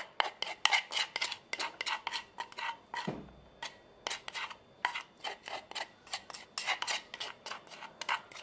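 A spoon scraping and tapping against the inside of a bowl as a thick chili and lemongrass paste is scraped out into a stainless steel pot: quick, irregular clicks and scrapes, several a second.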